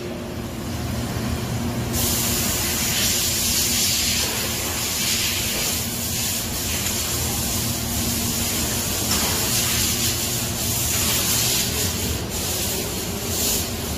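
Doosan DB130CX CNC horizontal boring mill turning its rotary table: a steady hiss over a low machine hum, the hiss getting louder about two seconds in.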